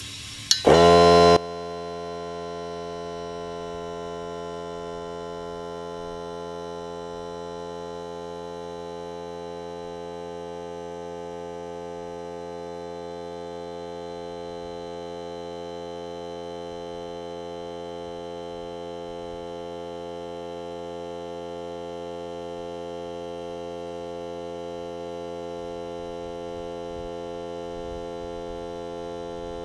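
Ryobi cordless air compressor switching on about a second in with a quick rising whine, louder for its first half second, then running with a steady, even hum as it pumps air into a flat pickup tire.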